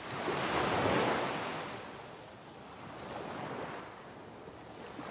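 Ocean waves washing in and drawing back, in slow swells: the biggest surge comes about a second in, with smaller ones around three and a half seconds and again near the end.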